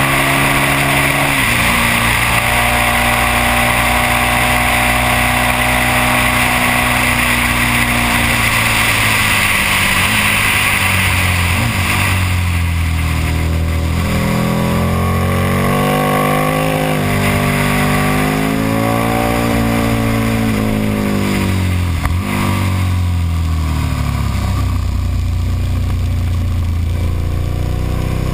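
KTM Super Duke's V-twin engine at track speed, with wind rushing over the microphone. The engine note drops and climbs again several times as the bike slows for corners and accelerates out, with a brief drop about three-quarters of the way through.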